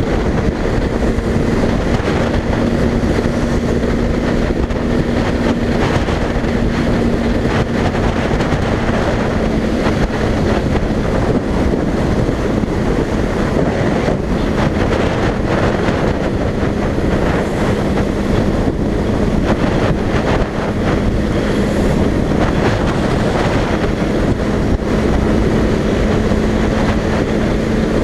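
Motorcycle engine running at a steady cruising speed, a constant low engine note under heavy wind rush buffeting the helmet-mounted microphone.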